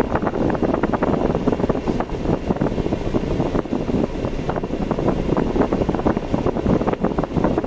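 Steady noise of a car being driven on the road, with wind buffeting the microphone.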